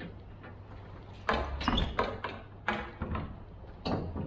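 Several separate sharp clunks and clatters, as of metal gear being handled at the side of a curtainside lorry, over a steady low engine hum.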